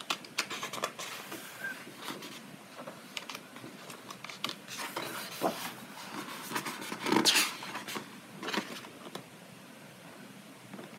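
Medium-weight paper pages of a colouring book being turned and smoothed flat by hand: an irregular run of rustles, swishes and light taps, loudest a little past seven seconds in.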